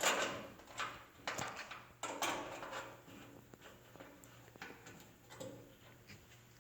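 Metal clinks and knocks of tailgate latch hardware being handled and fitted, sharpest in the first couple of seconds, then fainter scattered taps.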